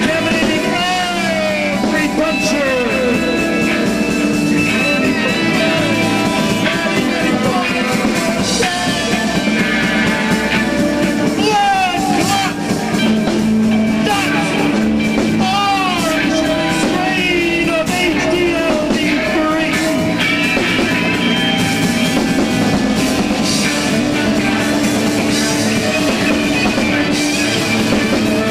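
Live rock band playing loudly and without a break: electric guitar, drum kit, and a man singing.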